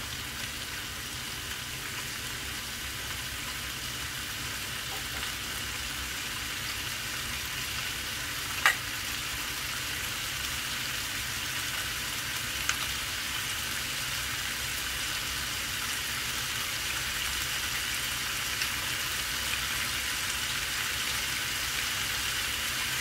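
Chicken pieces frying in a pan, a steady sizzle that slowly grows louder, with a sharp click about nine seconds in and a fainter one a few seconds later.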